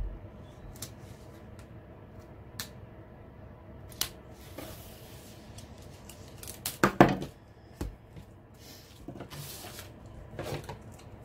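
Kitchen knife cutting through the wrapping on a rolled diamond painting canvas, with crinkling and rustling of the wrapping. Scattered light clicks and taps come early on, and the loudest crinkle comes about seven seconds in as the wrapping is pulled open.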